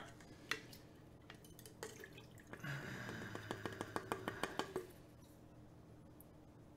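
Lighter fluid dripping from freshly dipped fire-eating torches: a few single drip taps, then a quick run of small taps between about three and five seconds in.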